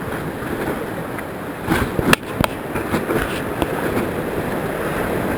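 Whitewater rushing around a raft in a rapid, a steady noise of moving water, broken about two seconds in by a few sharp knocks.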